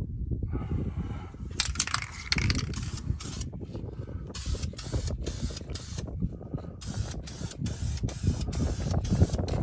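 Aerosol spray-paint can sprayed in a series of short hissing bursts with brief gaps between them, coming quickest in the second half, over a low rumble.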